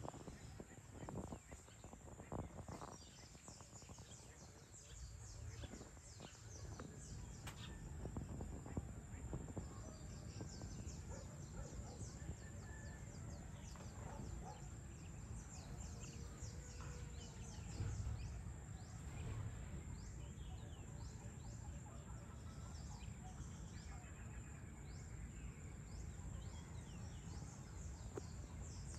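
Faint evening outdoor ambience: many short bird chirps and calls over a steady high-pitched whine and a low rumble.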